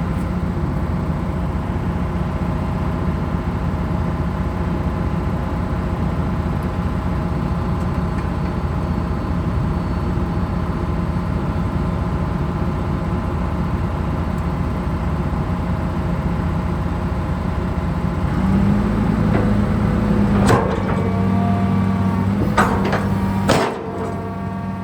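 A John Deere 200C LC excavator's diesel engine running steadily. About two-thirds of the way in, the engine note rises and strengthens as the hydraulics take load, with three sharp metallic clanks from the machine working. The sound drops off just before the end.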